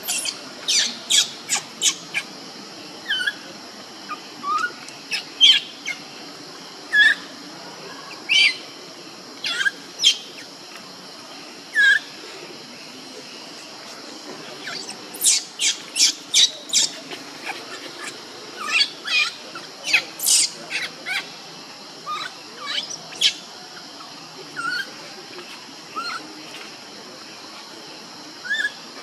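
Baby macaque crying: short, high-pitched squeals that fall in pitch, coming in irregular bunches, over a steady high background hiss.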